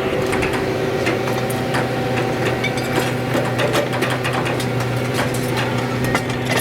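A scrap-yard grapple claw machine working: its engine runs at a steady pitch while many sharp metal clanks and knocks come from scrap being gripped and shifted in the truck bed.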